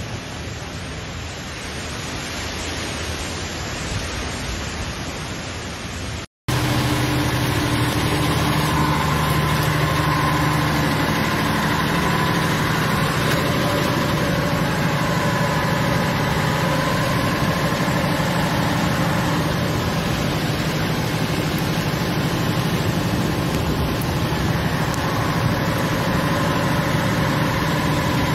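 Hurricane wind and driving rain as an even rushing noise. After a short break about six seconds in, a louder steady mechanical hum sits under the rain.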